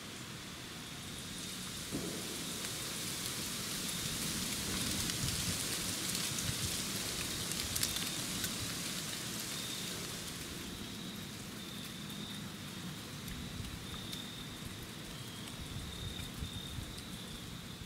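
Outdoor woodland ambience: a steady hissing wash, like rain or wind in the trees, swelling through the first half and easing after, under a continuous high insect trill.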